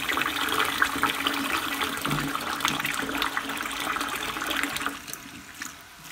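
Cold tap water running into a pot of cooked chickpeas in a stainless steel sink while a spatula stirs them, with light clicks and scrapes, rinsing the chickpeas to loosen their skins. The water stops about five seconds in.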